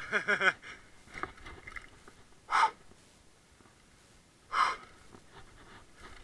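Mountain biker breathing hard on a downhill run: a short grunt-like vocal sound at the start, then two sharp, loud exhales about two seconds apart.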